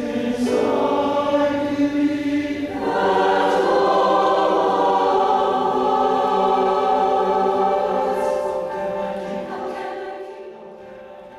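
Mixed choir of men's and women's voices singing a slow passage in long held chords. A new, fuller chord comes in about three seconds in, and the singing fades away over the last few seconds.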